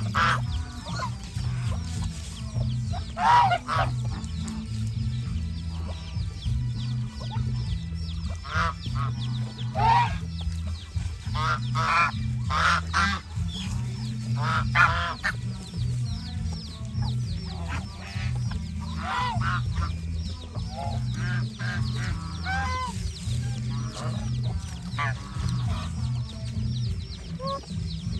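Domestic geese honking over and over, a few calls standing out loudly, with many faint high chirps in between. Background music with a steady low beat plays underneath.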